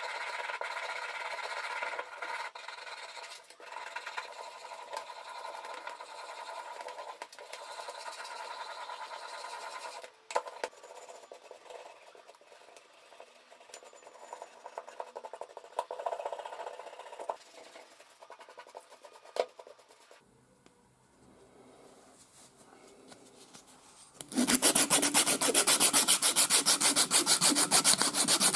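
A stiff plastic brush scrubbing the soaked, grimy metal parts of a 1940s breast drill in a steel tray, in uneven strokes. Near the end, much louder fast back-and-forth sanding of the drill's wooden handle with a strip of sandpaper.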